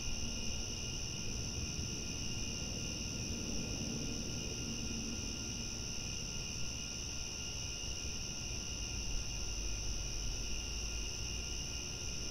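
Crickets chirping at night in a steady, continuous chorus, with a low rumble underneath.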